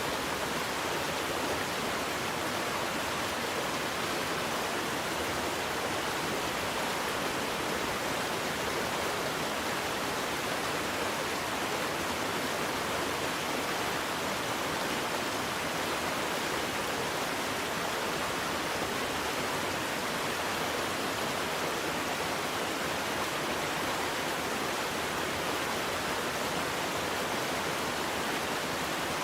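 Waterfall: water falling and splashing in a steady, unbroken rush, with no change throughout.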